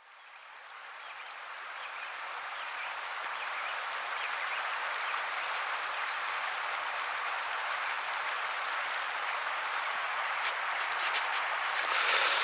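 Steady hiss of river water rushing and lapping close to the microphone, fading in over the first couple of seconds. A few short clicks come near the end.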